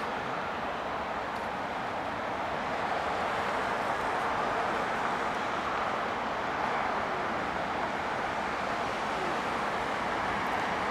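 Steady, even hum of distant city road traffic, with no single vehicle standing out.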